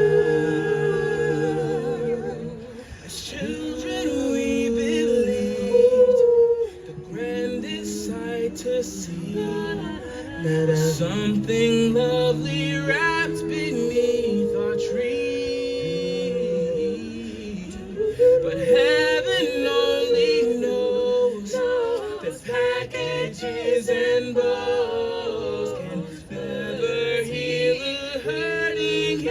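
A cappella vocal group singing in four-part harmony: a held upper note over lower voices that move from note to note.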